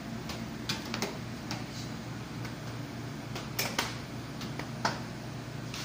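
Irregular sharp clicks and taps of floor squeegees working over a wet tiled floor, over a steady low hum.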